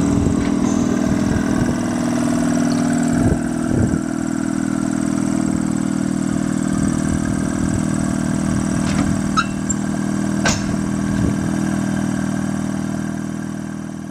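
Blackpool Balloon double-deck electric tram running with a steady mechanical hum that holds one pitch throughout, broken by a few sharp clicks and knocks, the sharpest a little past halfway.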